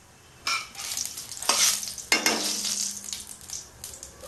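Panch phoron (five-spice seeds) sizzling in hot mustard oil in a kadai on full gas while a spatula stirs them and scrapes the pan, the tempering step. The sizzle and scraping start about half a second in and are loudest through the middle.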